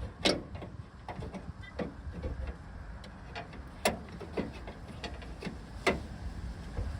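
Sharp clicks and light knocks of a replacement door handle and its hardware being handled and fitted into a car door, with three louder clicks just after the start, about four seconds in and about six seconds in, over a low rumble.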